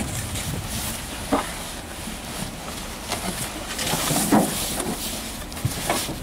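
A stiff plastic sheet rustling as a wrapped bald eagle is lowered into a cardboard box, with a few short bumps of handling; the loudest comes about four seconds in.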